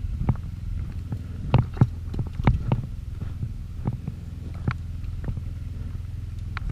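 A steady low hum with irregular clicks and knocks scattered through it, most of them bunched about a second and a half to three seconds in.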